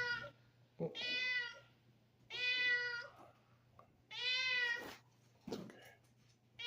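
A domestic cat meowing over and over, a long, even-pitched meow about every one and a half seconds.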